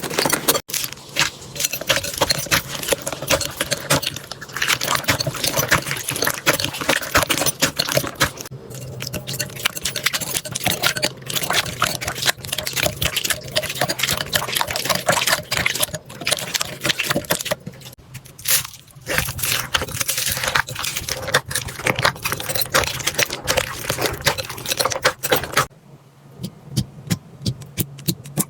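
Hands kneading and squeezing slime, making a dense run of crackles and small sticky pops. It thins to sparser, quieter clicks near the end.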